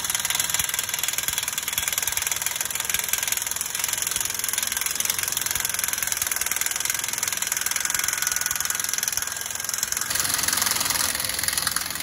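Impact wrench hammering rapidly and steadily on the leaf-spring U-bolt nuts of a truck's steer axle. The sound changes about ten seconds in.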